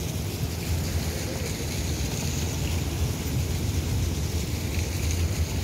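Steady low rumble of city street noise outdoors, with wind buffeting the microphone.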